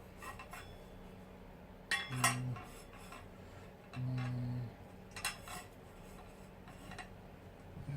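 Metal parts of a folding laptop table clinking and knocking as they are handled and fitted together, with sharper clinks about two and five seconds in. Two short low hums from a person break in between.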